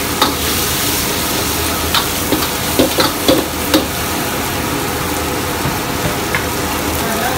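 Stir-frying vegetables in a steel wok over a gas burner: steady sizzling, with a metal ladle scraping and knocking against the wok several times, mostly in the first four seconds.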